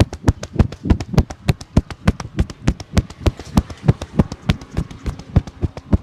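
A barber's hands slapping in an even, quick rhythm during a percussive massage, about three sharp strikes a second.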